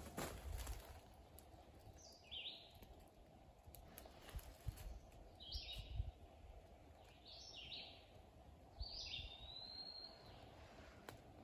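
A bird calling four times in short, high notes that drop in pitch, the last one held a little longer, over a faint low rumble.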